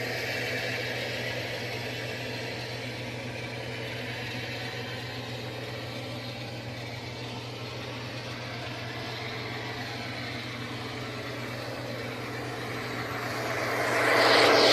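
Sound-decoder recording of a GE ES44AC diesel locomotive's engine running steadily, played through an HO-scale model's small speakers, with a low steady hum under it. Near the end the sound swells louder for a moment.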